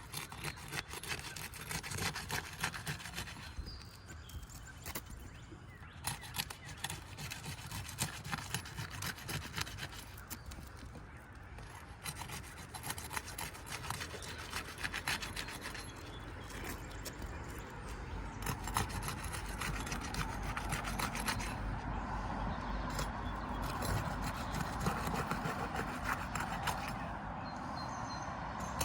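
Sealed asphalt roof shingles being broken loose along their tar strips: repeated scraping, rubbing and crackling as a tool works under the shingle tabs, in bouts with a few short pauses.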